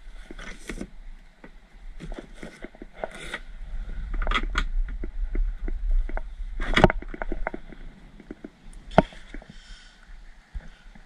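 Knocks, clicks and scrapes of a rope and gear against a plastic kayak hull as the rope is handled, with wind rumbling on the microphone. The loudest knock comes about seven seconds in, another near nine seconds.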